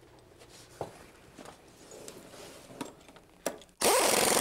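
A few light metal clicks as an adjustable wrench is set on a nut, then near the end an impact wrench starts suddenly and runs loud with a fast hammering, tightening a through-bolt in a laminated timber beam.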